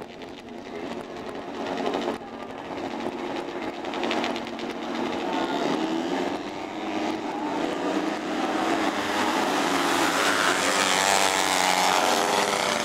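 Engines of a pack of small autocross racing buggies revving hard as they pull away and race on a dirt track, several engines overlapping and growing louder toward the end.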